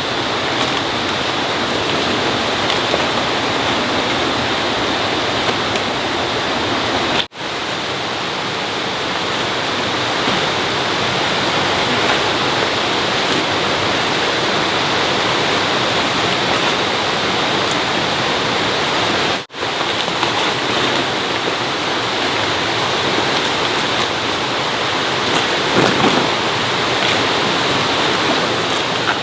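Steady rushing water noise, broken by two brief dropouts, about a quarter of the way in and about two-thirds of the way in.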